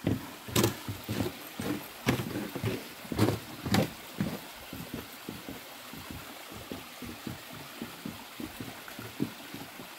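Small mountain stream trickling and gurgling over rocks, with a few sharp knocks in the first four seconds.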